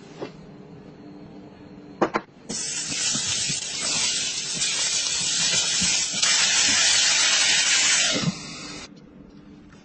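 Loud, steady hiss from shrimp cooking in a ceramic pot. It starts about two and a half seconds in, grows louder midway and cuts off sharply near the end. A few short knocks come before it.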